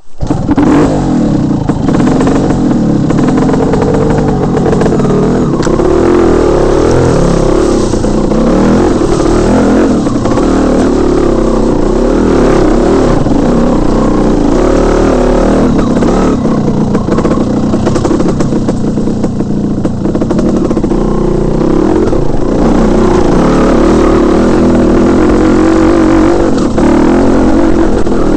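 Dirt bike engine coming to life abruptly and running as the bike is ridden over a rough trail, revs rising and falling with the throttle.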